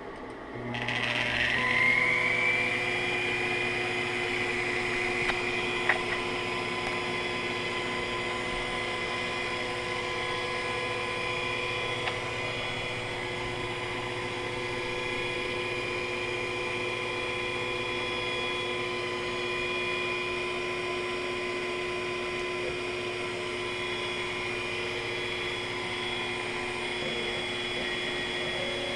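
Taig CNC mill's spindle motor spinning up about a second in with a rising whine, then running steadily with a 1/4-inch flat end mill in the spindle.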